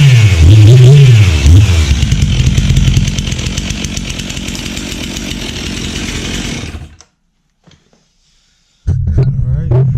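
Stihl MS362C two-stroke chainsaw engine, warmed up after a cold start, revved up and down twice in quick throttle blips, then dropping back to a steadier idle. The sound cuts off suddenly about seven seconds in, and a loud low rumble starts again near the end.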